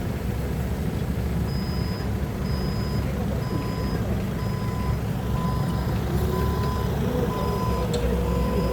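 Forklift engine running steadily, with its reversing alarm beeping about once a second from about a second and a half in: the truck is backing up.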